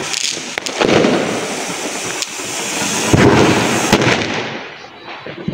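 Ground firework fountain (anar) spraying sparks with a steady rushing hiss that surges louder twice, with a few sharp cracks, fading near the end.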